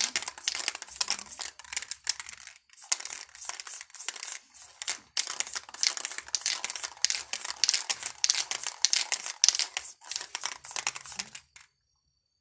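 Aerosol spray-paint can hissing in a run of short bursts and a few longer passes as paint is sprayed onto a wall, stopping shortly before the end.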